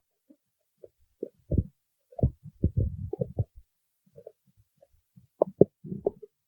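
A person's stomach growling: short, irregular gurgles and pops, busiest from about two to three and a half seconds in and again near the end.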